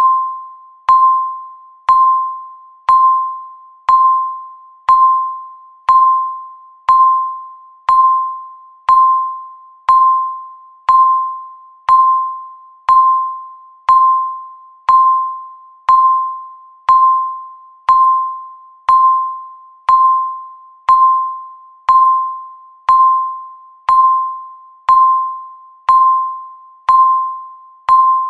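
Countdown timer beep: a single clear electronic tone sounding once a second, each one starting sharply and dying away before the next.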